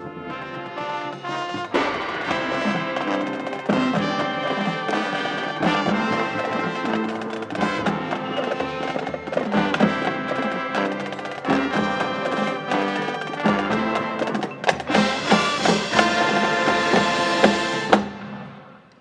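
High school marching band playing, brass and drums together: the music swells about two seconds in, stays loud through a full-band passage, and stops abruptly with a final accent near the end, leaving the sound to die away.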